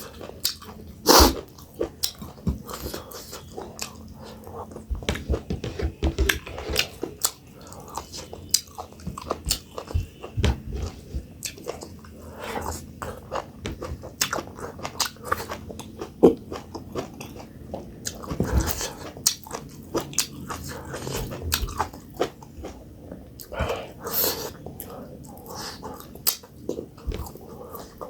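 Close-miked eating sounds: a person chewing and biting food, with irregular wet mouth clicks and smacks.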